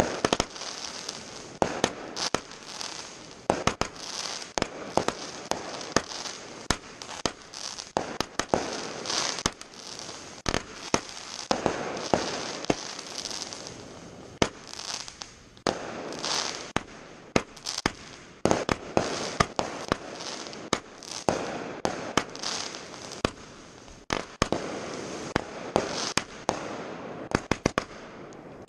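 Fireworks going off in quick succession: many sharp bangs and pops, several a second, with stretches of crackling between them.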